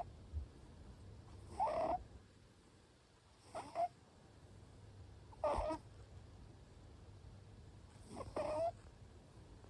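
Short-legged Munchkin cat snoring in its sleep: four short, slightly high-pitched snores, about two seconds apart.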